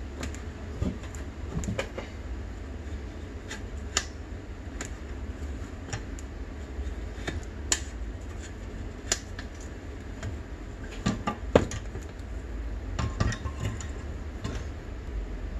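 Steel tire irons clinking and knocking against a dirt bike wheel's rim as the tire bead is levered over it: scattered sharp metallic clicks over a steady low hum.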